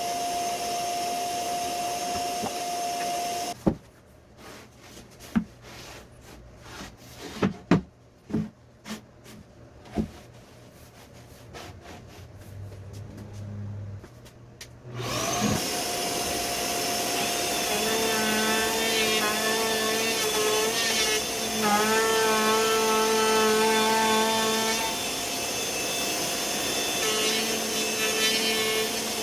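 An electric woodworking power tool runs with a steady whine and stops a few seconds in. There are then about ten seconds of scattered knocks and clicks of wood being handled. The tool starts again and runs on, its pitch dipping briefly a few times as it takes load in the wood.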